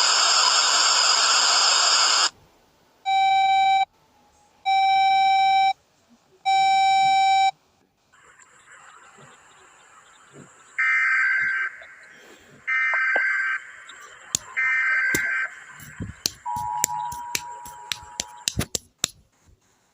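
Electronic emergency-alert tones. A loud hiss of static cuts off about two seconds in, followed by three long beeps. After a pause come three higher buzzing bursts like an Emergency Alert System header, a brief two-note tone, and a run of sharp clicks.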